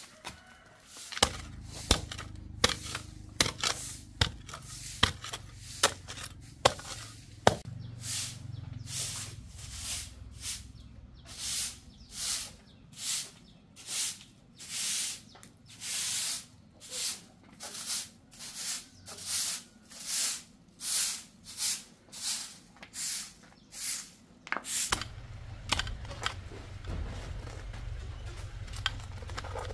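A steel digging bar driven into soil, sharp knocks every half second or so, followed by a long run of rhythmic swishing strokes about once a second that stops about 25 seconds in.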